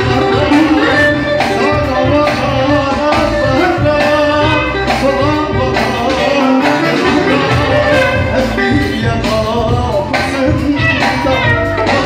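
Live Turkish folk (türkü) music: a man singing into a microphone over an amplified bağlama (long-necked saz).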